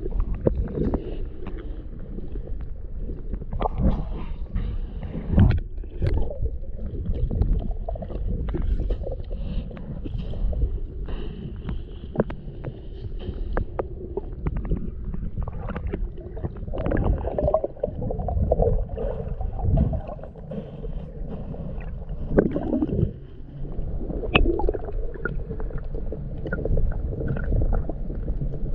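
Muffled underwater rumble of sea water moving around a microphone held below the surface while swimming, with scattered clicks and knocks throughout.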